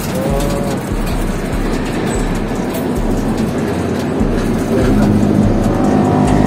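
Street traffic noise, with a vehicle engine coming in as a steady hum about five seconds in and growing louder.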